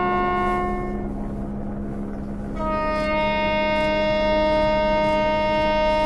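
Diesel freight locomotive sounding its horn: one blast that stops about a second in, then a second, longer and higher-pitched blast from about two and a half seconds in, over a low steady hum.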